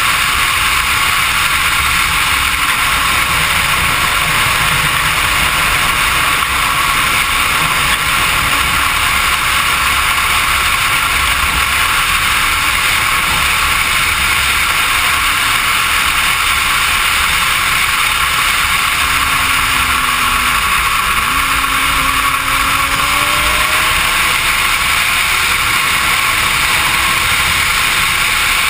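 Suzuki GSX-R sportbike riding at highway speed, heard from onboard as a steady, loud rush of engine and wind, with faint engine notes that slowly rise and fall in pitch.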